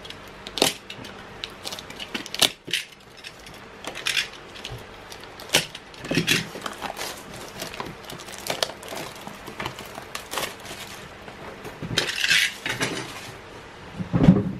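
Plastic shrink wrap being slit with a blade and peeled off a cardboard box: irregular crinkles and crackles. A dull knock comes near the end.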